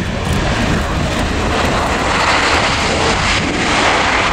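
Jet engine noise from an Airbus A319's CFM56 turbofans as the airliner rolls out on the runway just after touchdown: a steady rushing roar that grows stronger about a second and a half in.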